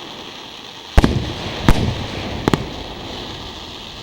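Aerial fireworks shells bursting: a loud boom about a second in with a rumbling tail, a second boom a moment later, then a quick double crack.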